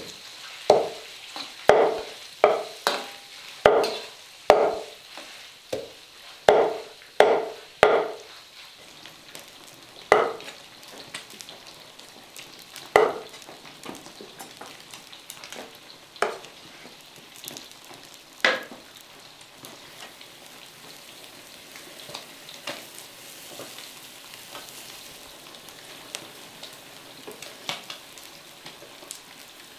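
Pork fat rendering into lard in an iron wok, sizzling steadily as it is stirred. A run of sharp knocks comes over the first eight seconds, then single knocks every few seconds and lighter ticks toward the end.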